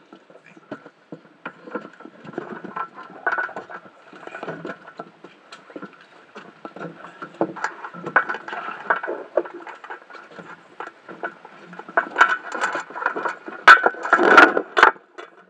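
Underwater handling noise on a head-strapped camera housing: muffled scraping, tapping and clicking, with a few louder knocks near the end as a hand comes up to the camera.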